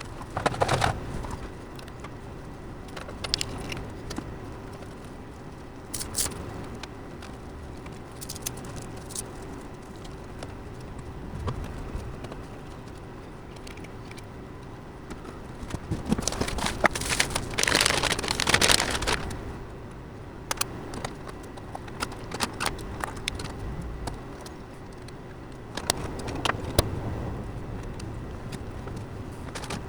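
Hands working on computer parts and a server case: scattered clicks, rattles and small knocks, with a louder, longer stretch of scraping from a little past the middle.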